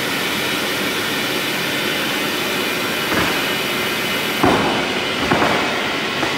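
Polystyrene foam sheet extrusion line running: a steady, loud machine hum and hiss with a few sharp knocks in the second half.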